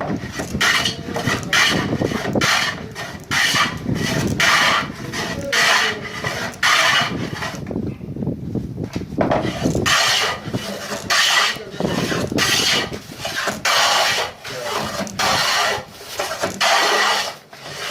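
A carpenter's hand tool worked back and forth on wood, making rasping strokes about once a second with a short pause near the middle.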